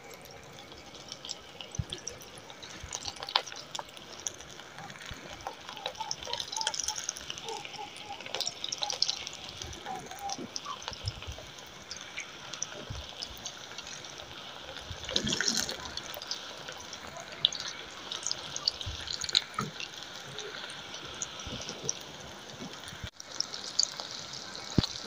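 Potato samosa rolls deep-frying in hot cooking oil in a wok: a steady sizzle of bubbling oil with many small crackles, louder for a moment about halfway through.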